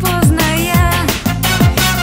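Electronic pop dance music with a steady beat, about two kick-drum strokes a second, under a melody line.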